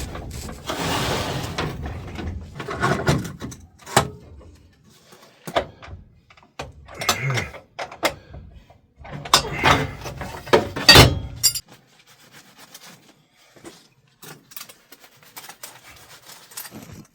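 Irregular knocks, clicks and clunks of hand-handled metal parts and tools, loudest in two clusters early on and about two-thirds through, then fainter ticks. A steady rushing noise fades out over the first couple of seconds.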